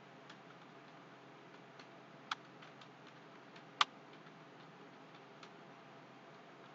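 Computer keyboard being typed on: faint, irregular key clicks, with two louder clicks about a third of the way in and just past halfway.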